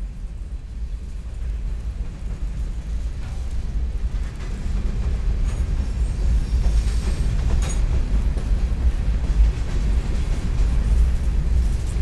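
Freight train of covered hopper cars rolling past with a heavy, steady rumble of wheels on rail, growing louder. A faint high squeal and a sharp click come about six to eight seconds in.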